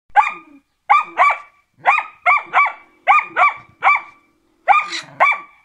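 Karelian Bear Dog barking at a caged animal in a live trap, about eleven short barks in quick twos and threes.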